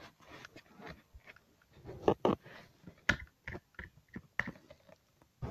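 Slime being worked and cut up by hand in a small plastic tub: an irregular run of small sticky clicks and pops, the loudest a few crackles about two to three seconds in.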